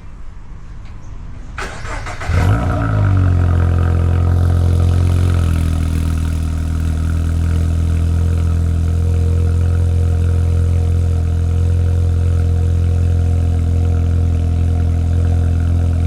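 Subaru BRZ flat-four engine started through a newly fitted Borla aftermarket exhaust. It cranks briefly and catches about two seconds in, runs at a raised idle, then settles to a steady deep idle about five seconds in.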